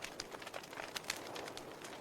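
Wood fire crackling in a fireplace: irregular sharp pops and snaps over a soft steady hiss.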